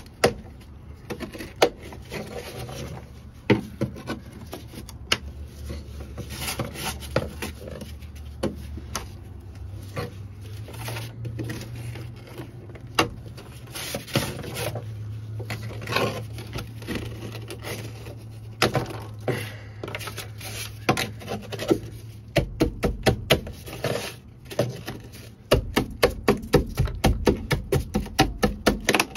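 Screwdriver tip scraping and chipping brittle old coating off a car's steel floor pan: irregular scrapes and sharp clicks as flakes break away, quickening into a fast run of short strokes near the end.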